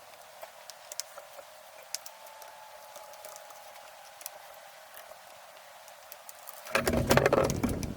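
Small clicks and handling noise from the parts of a GSG-16 .22 rifle being taken apart, with a louder clatter about seven seconds in.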